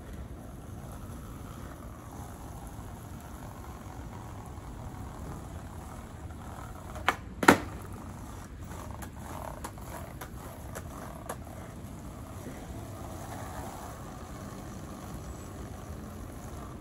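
Skateboard on a paved path: a light click, then about half a second later a sharp loud slap, the pop and landing of a trick. A few scattered clicks of the board follow over a steady background hiss.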